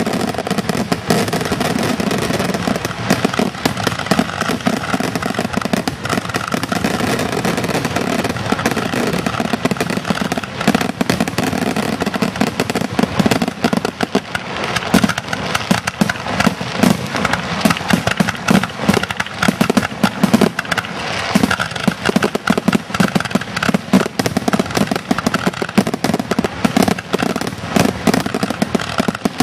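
Aerial fireworks going off in rapid succession: a continuous barrage of sharp bangs and crackling with no pause.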